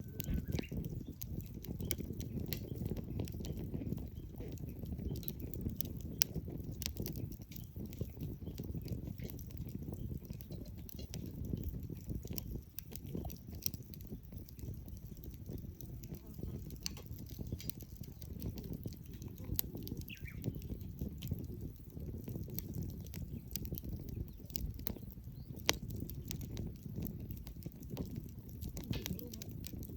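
Wood campfire crackling, with sharp pops and snaps scattered irregularly over a steady low rush of the burning fire.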